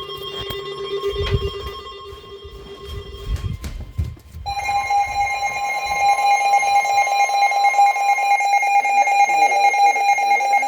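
Weather alert radio alarm going off for a National Weather Service severe thunderstorm warning. A lower, rapidly pulsing tone with a few dull thumps lasts about three seconds, then about four and a half seconds in a loud, high alarm tone starts and holds steady.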